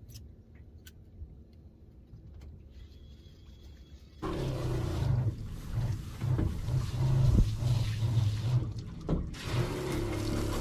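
Faint low rumble with a few light clicks. Then, suddenly about four seconds in, a boat's washdown pump is running, spraying and splashing water over a steady low hum.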